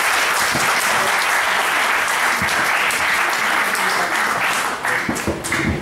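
Audience applauding: many people clapping at once in a dense, even patter that thins out and fades near the end.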